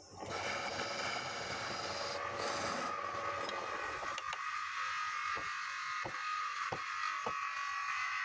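A wood lathe running with a steady whirring noise, heavier for the first few seconds, with a few sharp clicks after about four seconds.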